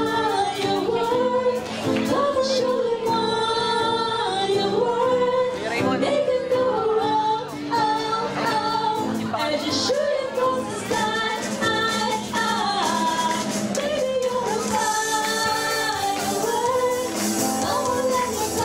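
Two women singing a pop song into microphones, backed by a small live band of acoustic guitar, keyboard and electric guitar.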